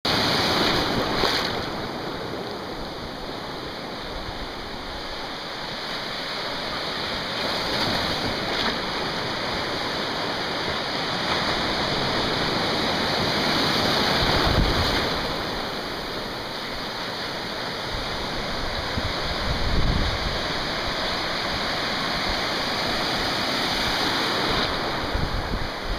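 Ocean surf breaking and washing in, a steady rushing that swells and eases. Wind buffets the microphone a couple of times, about halfway through and again later.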